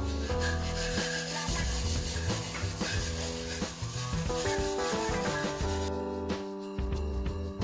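Gray Scotch-Brite pad scuffing the cast-iron deck of an LQ4 V8 block with light pressure, a dry rubbing hiss that stops about six seconds in. It is roughing up the deck so the head gasket can grip. Background music plays throughout.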